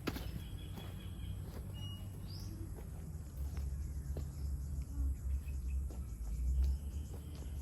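Rural outdoor ambience: a steady high insect drone with a few short bird chirps, over a low rumble that swells in the second half.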